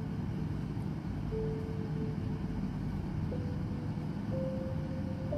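Soft, slow background music: long held notes that change every second or so over a steady low hum.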